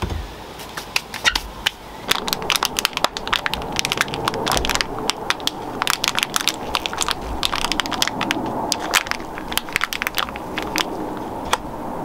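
Thin plastic seedling cell tray crackling and clicking as Swiss chard seedlings and their soil plugs are squeezed and pulled out of the cells, with soil crunching under the fingers. Irregular rapid crackles that grow busier about two seconds in.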